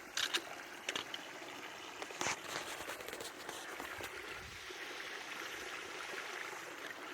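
Steady rush of water from a waterfall running at a low late-season flow, with a few short clicks in the first two and a half seconds.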